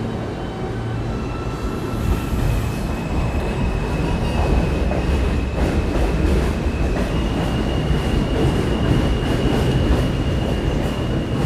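New York City subway train running, with a steady high-pitched wheel squeal that shifts pitch a few times and a clatter of wheels over the rail joints; the rumble gets louder about two seconds in.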